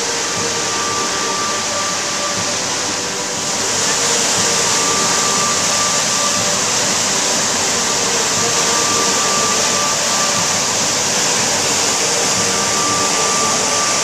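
The River Tees in spate pouring over a rocky waterfall: a loud, steady rush of water that swells about three and a half seconds in. Soft sustained music notes sound underneath.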